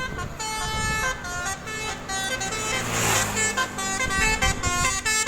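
A Basuri telolet bus horn playing a quick tune of stepped horn notes, each note lasting a fraction of a second. A brief rush of hiss comes near the middle over a low engine hum.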